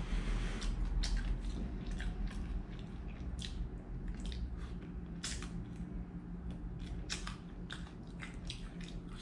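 Cooked prawns being peeled by hand: a scatter of small crackles and snaps of shell, with chewing in between.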